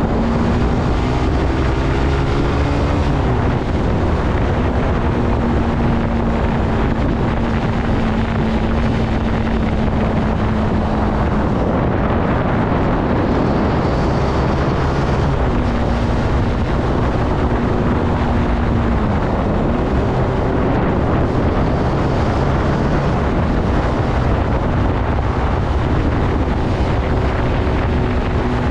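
Zontes C125 motorcycle's 125cc engine running on the road, its note rising and falling a few times with throttle and gear changes, under steady wind rumble on the microphone.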